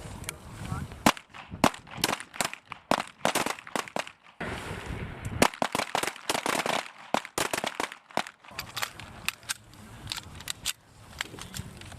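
Irregular, overlapping shots from several M17/M18 9 mm service pistols firing at once on a firing line. The shots start about a second in and stop near the end.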